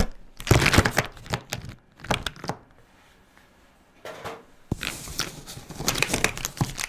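Paper rustling and being handled, with scattered light clicks, a short lull, one sharp click, then steadier rustling.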